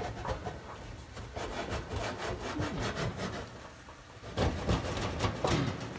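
Hands handling the dryer's sheet-metal panel and wire harness: scraping and rubbing with scattered clicks and knocks, and a louder cluster of knocks and scrapes about four and a half seconds in.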